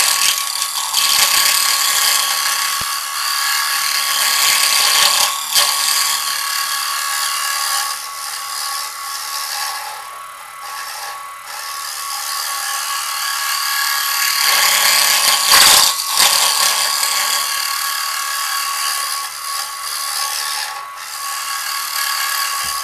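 Turning gouge cutting the inside of a large red oak bowl spinning on a wood lathe: a continuous rough, hissing scrape of wood being cut away, with a steady whine running under it. The cutting eases off briefly about ten seconds in, then picks up again.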